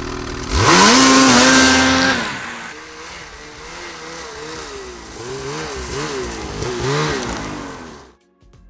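Ski-Doo Summit SP 850 E-TEC snowmobile's two-stroke twin revving hard as the sled pulls away, the pitch sweeping up about half a second in and holding high for over a second. The engine then fades as it rides off, rising and falling with the throttle, until it cuts off near the end.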